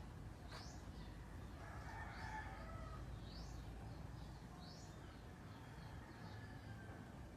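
Birds calling in the background: short rising chirps repeated about once a second, with a fainter drawn-out call like a distant rooster's crow about two seconds in, over a low rumble.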